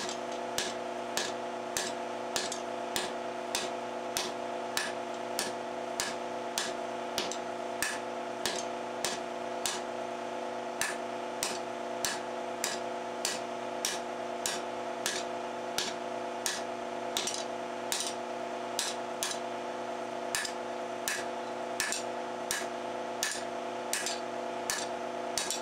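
Hand hammer striking a red-hot 4130 steel bar on an anvil in a steady rhythm, a little under two blows a second: rough drawing out of a tong blank. A steady hum runs underneath.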